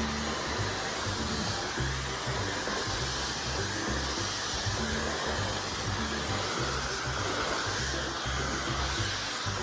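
Dyson Supersonic hair dryer blowing steadily, with background music carrying a stepping bass line.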